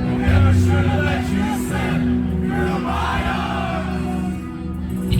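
Live metalcore band playing, with steady low bass notes and singing voices over it.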